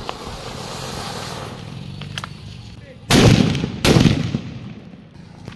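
Anar fountain firework spraying with a steady hiss, then two firecracker bombs fixed on top of it bursting with two loud bangs less than a second apart, about three seconds in.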